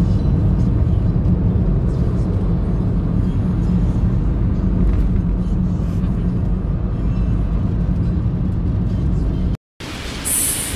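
Steady low rumble of road and engine noise inside a moving car, heard from the back seat. It cuts off abruptly near the end and gives way to a brief hiss.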